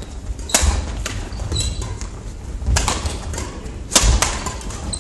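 Badminton rackets striking a shuttlecock in a doubles rally: several sharp hits a second or more apart, the loudest about four seconds in from an overhead smash. Sneakers squeak and feet thud on the wooden court floor between the hits.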